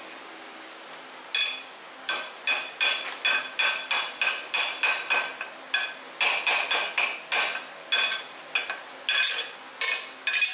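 A hammer striking the steel railroad-track anvil over and over, about three blows a second with a short break midway, each blow leaving a ringing tone. The strikes start about a second and a half in.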